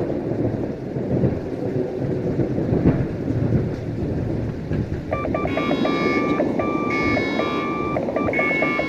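Storm sound effect of heavy sea and wind with a low rumble. From about five seconds in, an electronic telephone ring sounds in repeated trilling bursts.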